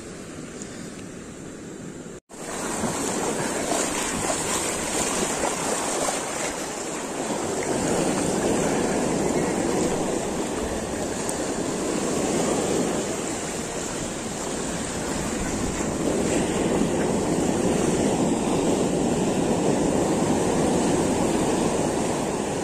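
Ocean surf breaking on a beach, a steady rushing noise that swells louder and eases off in slow waves.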